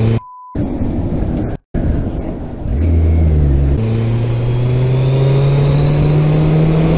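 Kawasaki 1400GTR's inline-four engine heard from the rider's helmet camera. After a deeper stretch about three seconds in, the note steps up and then climbs slowly and steadily as the bike accelerates. Near the start the sound cuts out twice briefly, the first gap holding a short beep.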